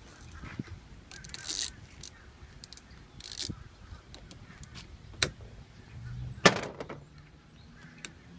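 Scattered metallic clicks and short rattles of a 10 mm socket wrench and loose door parts being handled, with one sharp click about six and a half seconds in.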